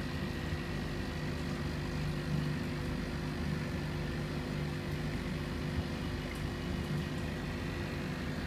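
Steady machine hum of aquarium air pumps and filtration, an even low drone with a few faint steady tones above it and no change in pitch or level.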